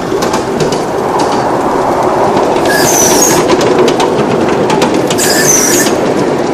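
Ride-on miniature train running along its narrow-gauge track: a steady rumble of wheels with clicks over the rail joints. Two brief high squeals come about three and five seconds in, typical of wheel flanges squealing on a curve.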